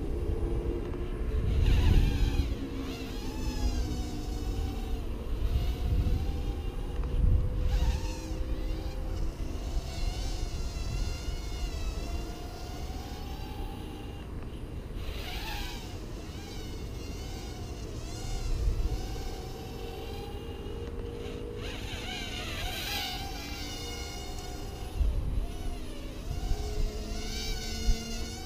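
SPC Maker 90X micro FPV quadcopter buzzing in flight, the pitch of its motors and propellers rising and falling with the throttle. Low rumbles come and go a few times.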